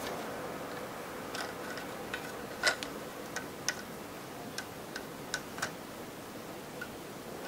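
Irregular light clicks and taps of a plastic Lego tractor model being turned over in the hands, with one sharper click about a third of the way in, over a faint steady hum.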